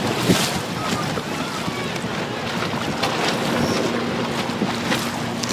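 Heavy wind blowing across the microphone, with waves washing on the shore.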